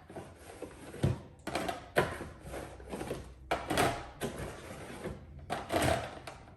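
Soda cans set one after another into a plastic refrigerator can-holder bin, each landing with a knock and a short clatter, about once a second.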